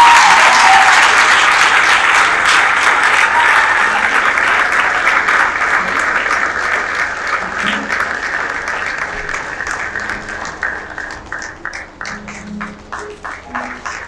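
An audience applauding, loudest at the start and slowly dying away into scattered single claps over the last few seconds.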